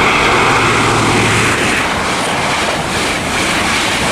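High Speed Train (InterCity 125) passing through the station at speed: a loud, steady rush of diesel power car and wheel noise.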